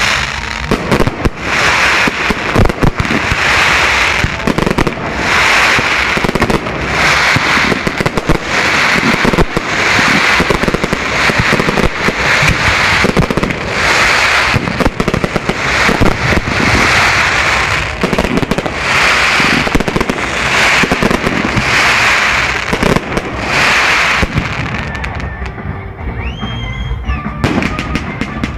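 Fireworks display: a dense, continuous barrage of shell bursts and crackling, swelling in waves of hissing crackle about every couple of seconds. It thins out near the end.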